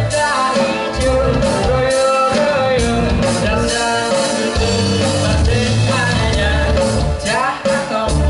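A live rock band playing a song, with a singer's voice over the instruments.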